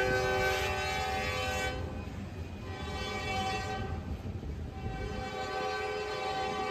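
Locomotive air horn sounding a chord in three blasts: one cut off early, a short one, then a longer one held. A train's low rumble runs underneath.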